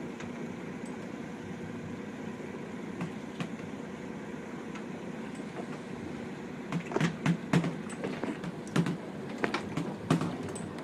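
Steady noise of wind and open water heard from a boat at sea. From about seven seconds in there is an irregular run of sharp taps and knocks.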